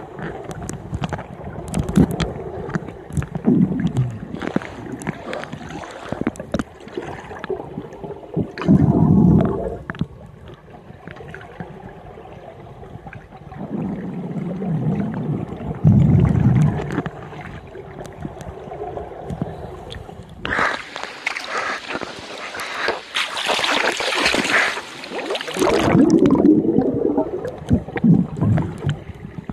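Underwater sound of scuba divers' regulator exhalations: bursts of bubbles gurgling and rumbling every few seconds, with a louder hissing rush lasting about five seconds some two-thirds through.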